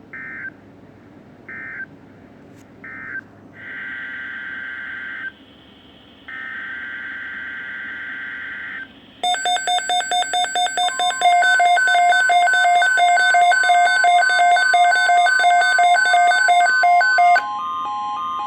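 Emergency Alert System data bursts: three short bursts of warbling digital tone about a second apart, then two longer bursts. About halfway in, a louder run of rapid electronic beeps stepping in pitch starts over a steady alert tone, and the steady tone carries on alone near the end.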